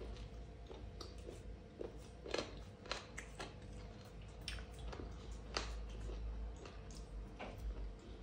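Close-miked mukbang chewing of soft maize dhido with curry: irregular wet mouth smacks and small clicks, along with fingers squishing the dhido in the plate.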